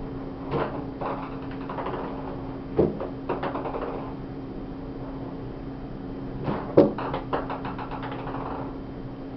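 A ping-pong ball batted by a cat, knocking and bouncing on the floor and sides of a bathtub, in two quick runs of light ticks about three and seven seconds in, with a few single knocks between. A steady hum runs underneath.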